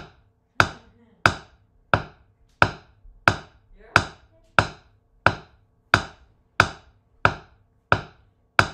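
Wooden drumsticks striking a practice pad in a steady, evenly spaced stream of taps, about one and a half a second. This is a doubles exercise: two strokes with each hand in turn, right-right-left-left.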